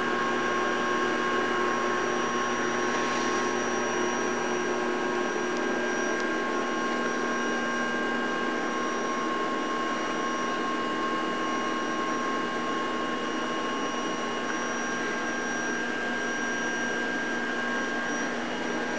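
Vacuum cleaner running steadily: a constant motor whine with several held tones over the rush of air.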